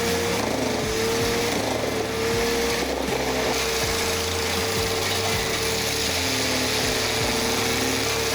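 Wood chipper running under load: a steady machine whine that sags briefly in pitch a few times early on, over a noisy grinding of wood being chipped.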